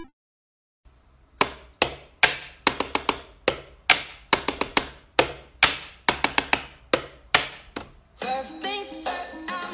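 Wall light switches clicked over and over: about twenty sharp clicks in an uneven rhythm, some in quick runs. Music comes in near the end.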